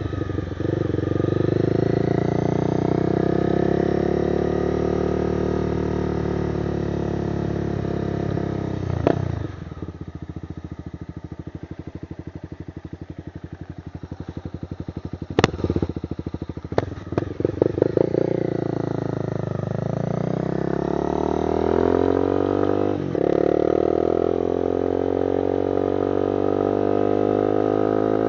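Honda CBR300R's single-cylinder engine through an aftermarket exhaust, ridden: it pulls up through the revs and breaks off about nine seconds in, then runs down off the throttle with a few sharp pops near the middle, then rises again with another brief break a little past twenty seconds.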